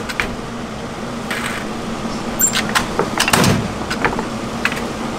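Hand-cranked candy drop roller clanking and clicking as a rope of hard candy is fed through its rollers, with a louder knock about three and a half seconds in. A small electric fan hums steadily underneath.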